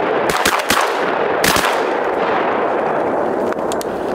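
Shotguns fire a quick volley of about four shots in the first second and a half, the last one the loudest, each report trailing into a long echo that slowly fades.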